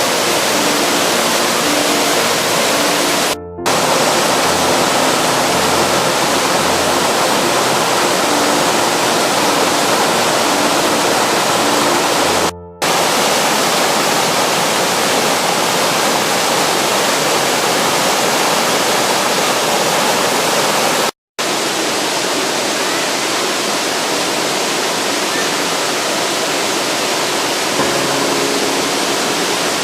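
Waterfall: a loud, steady rush of falling water, broken off abruptly three times by edits.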